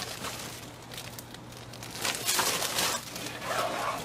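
Plastic wrapping and tissue paper rustling and crinkling as plastic-wrapped bundles are handled in a cardboard box, in irregular swells, loudest about two seconds in and again near the end.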